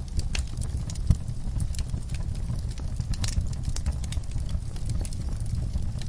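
Fireplace fire crackling, with irregular sharp pops over a steady low rumble of the flames; one louder pop about a second in.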